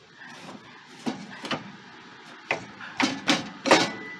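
Steel tow-bar bracket and crossbar tube knocking and clanking as they are worked into place by hand: about six sharp knocks, more frequent in the second half, the loudest near the end.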